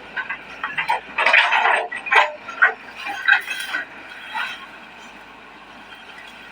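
Irregular clanks and knocks of an excavator bucket working in a ditch, thickest in the first few seconds and thinning out after about four seconds.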